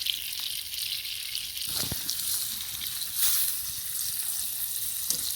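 Rainbow trout frying in a pan: a steady sizzle, with a few light knocks from the pan or utensil.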